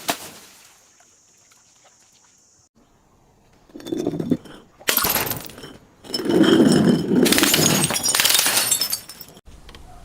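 Glass being broken and crushed: after a quiet start, three bouts of crunching and cracking, the last and loudest lasting about three seconds before it cuts off abruptly.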